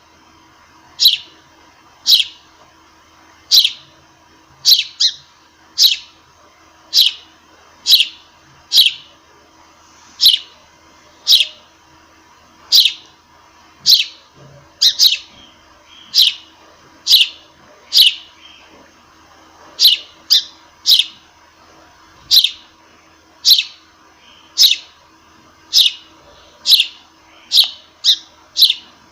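A sparrow chirping: single short calls about once a second, each a quick falling note, sometimes two close together.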